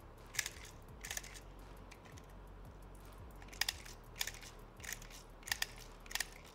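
Airsoft BBs dropped one by one into a Cybergun PT92 CO2 pistol's magazine: about seven small, sharp clicks at uneven intervals, with a pause of about two seconds after the first two.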